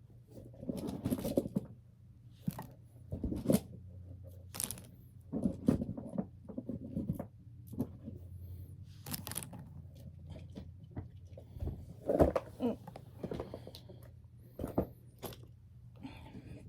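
Rummaging: fidget toys being taken out of a bag and set down, with scattered knocks, scrapes and rustles over a steady low hum.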